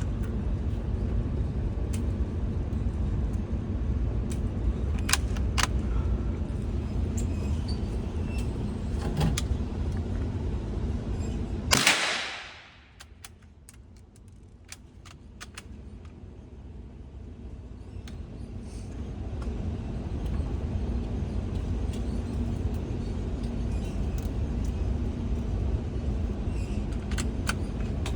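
A single .22 LR rifle shot about twelve seconds in, a loud sharp crack after which the recording's level drops away and slowly returns. Before and after, a steady low rumble with a few faint clicks.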